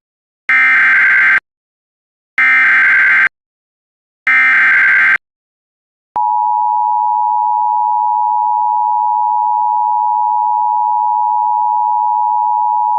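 Emergency Alert System broadcast: three bursts of SAME header data tones, each about a second long, are followed about six seconds in by the steady two-tone EAS attention signal. The attention signal announces the alert message that follows.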